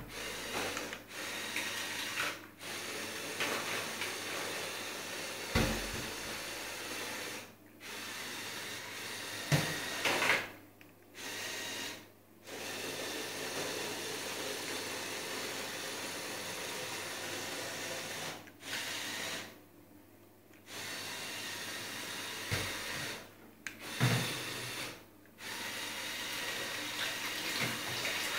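Lego RC boat running on water: a steady hissing rush that stops dead and restarts about nine times, as the drive is switched off and on. A few short low thumps come in between.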